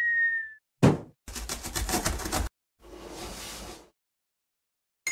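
Cartoon intro sound effects: a brief whistle tone that falls slightly and stops, a thump about a second in, a second or so of fast rattling, then a soft whoosh.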